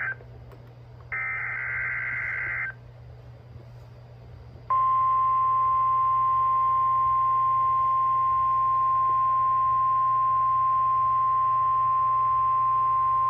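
NOAA Weather Radio emergency alert signal: a burst of warbling digital SAME header tones ends right at the start and another plays about a second in for a second and a half; some two seconds later the steady 1050 Hz warning alarm tone comes on and holds to the end, announcing a practice tornado warning.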